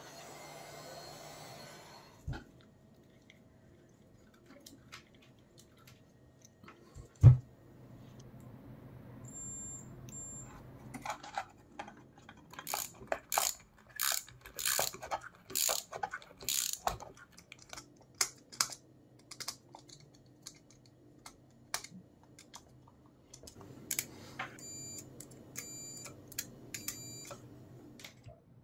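Clicks and small knocks of metal and plastic parts being handled while assembling an electric motor, with one sharp knock about seven seconds in. Around the middle comes a run of clicks about two a second as a ratchet wrench works a nut inside the plastic junction box.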